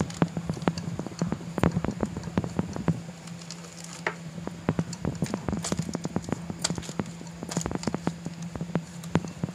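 Wooden rolling pin rolled back and forth over dough in a plastic zipper bag on a bamboo cutting board: rapid, irregular wooden knocks and clacks, several a second.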